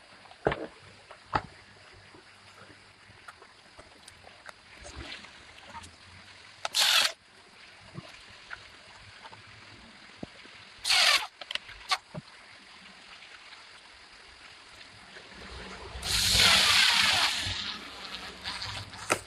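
Parts of a toy electric motorbike being handled and fitted together: scattered clicks and knocks, two short scraping rustles, and a longer, louder rustle near the end.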